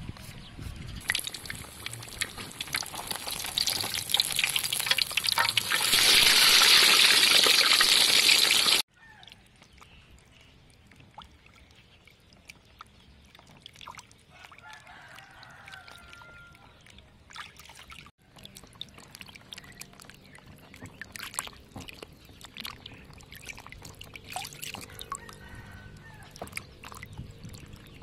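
Water pouring, a steady rush that grows louder and then cuts off suddenly about nine seconds in. Then hands swish and rub vegetables in a plastic bowl of water, with soft sloshes, splashes and drips.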